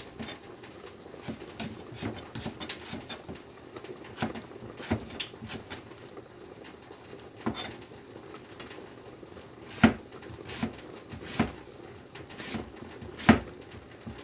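Kitchen knife cutting vegetables on a cutting board: irregular knocks every half second to a second, with a couple of louder ones near the end.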